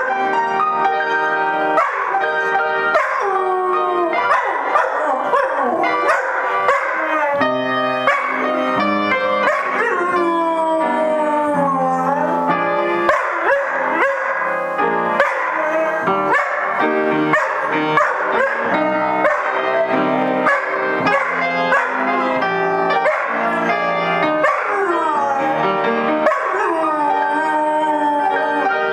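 Upright piano being played while a Bouvier des Flandres howls along, its long howls sliding up and down in pitch over the piano notes.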